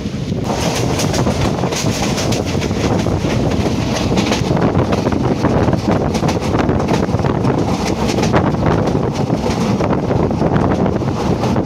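Express passenger train coach running at speed, wheels clattering and the carriage rattling, heard at an open window with wind on the microphone. The clatter gets sharper and denser about half a second in as the train runs out onto a bridge over open water.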